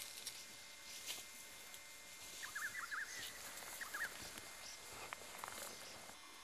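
Faint rustling of footsteps through tall dry grass on a steep slope, with a bird giving quick runs of chirping notes about two and a half seconds in and again near four seconds.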